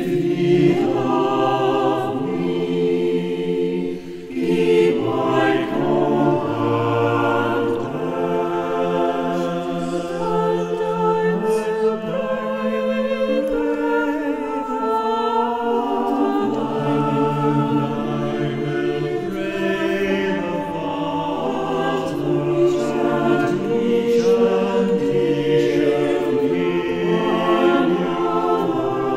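Unaccompanied church choir singing slow, held chords.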